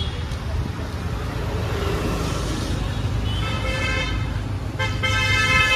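Road traffic running steadily, with a vehicle horn sounding twice in the second half: a blast of about a second, then a louder one.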